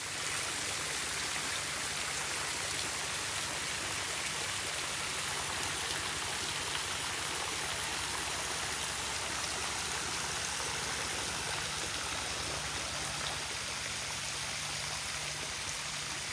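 Dense, steady hiss of water drops falling and splashing onto a pond and the foliage around it.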